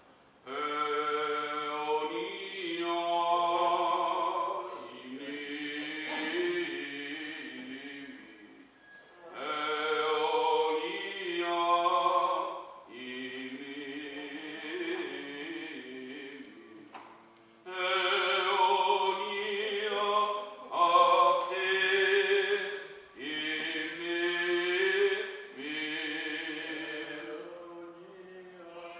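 Greek Orthodox Byzantine chant of the funeral service: a male voice singing long, drawn-out phrases that hold and bend in pitch, with short breaks between them.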